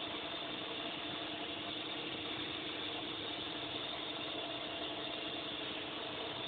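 A steady mechanical hum with a faint low drone, engine-like, that holds level throughout.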